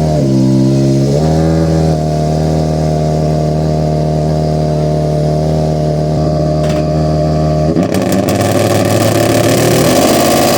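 Rally car engine held at steady high revs, its pitch dipping briefly about a second in and coming back up. About three quarters of the way through the sound turns abruptly rougher and uneven, with the pitch shifting.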